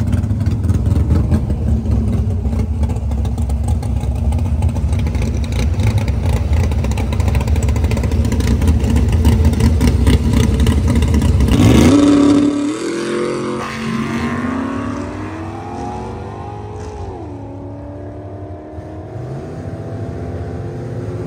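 Car engine running with a loud, rough rumble that cuts off suddenly about twelve seconds in. After that a quieter car engine is heard revving: its pitch falls twice and then climbs slowly.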